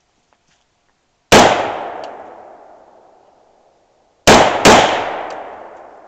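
Three rifle shots from an AR-15-style rifle: one single shot about a second in, then two in quick succession near the end. Each shot is followed by a long echo fading away over about two seconds.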